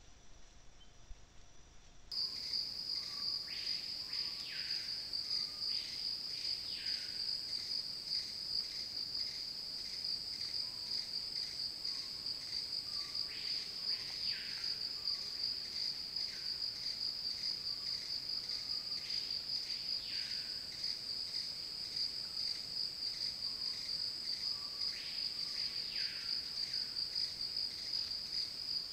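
A dense insect chorus: a steady, high-pitched, finely pulsing drone that starts suddenly after about two seconds of near quiet. Through it, pairs of descending whistled calls sound about every five or six seconds.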